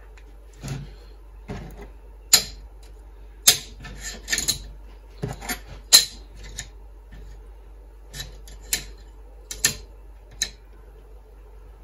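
Small cut plates of 2 mm aluminium sheet being handled and set down, clicking and clinking against each other and a wooden board. The taps come irregularly, about a dozen in all, some sharp and bright.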